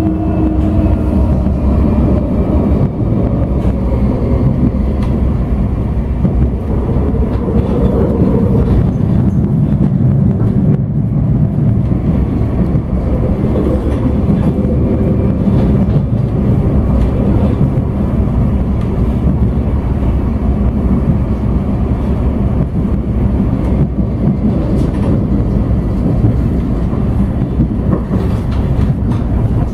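Interior running noise of a Nottingham Express Transit Bombardier Incentro tram moving along the line: a steady rumble of wheels on rail, with a faint falling whine from the traction motors in the first second.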